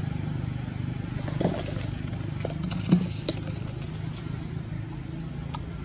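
Steady low drone of an idling motor engine, with two short sharp sounds about one and a half and three seconds in, the second the louder.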